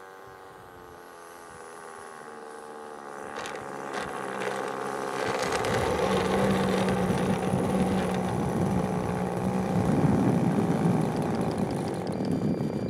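Eaglet 50 R/C model airplane's small .15 engine running at idle as the plane lands and rolls on the ground toward and past the microphone, growing steadily louder. A few clicks come at touchdown, and a rough rolling noise joins it once the plane is close.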